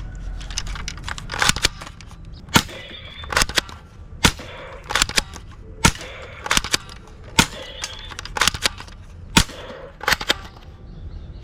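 Toy sniper gun firing a string of sharp shots, irregularly spaced at about one or two a second, some in quick pairs, over a low steady hum.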